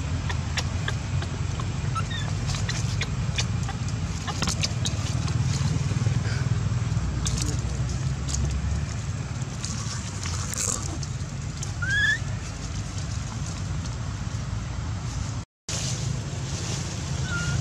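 Steady low rumble with scattered crackles and rustles of dry leaves and twigs, and a few brief, rising high squeaks, the clearest about twelve seconds in. The sound cuts out for a moment near the end.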